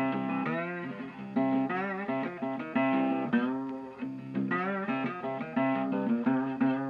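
Background music: guitar melody with plucked and bent notes over a steady low note pattern.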